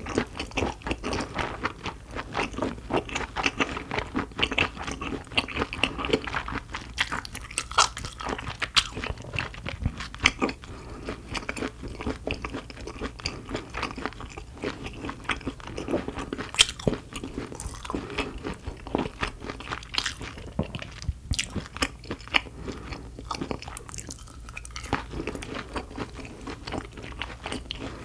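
Close-miked chewing and crunching, a person eating a meal of roasted beef bone marrow with steak and garlic bread, with many short crunches and bites following closely on one another.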